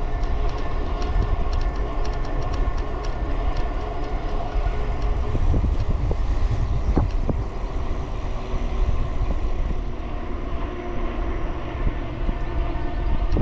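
Wind rushing over the handlebar camera's microphone as an electric bike rolls along at speed, with a steady hum from the drive motor and tyres underneath.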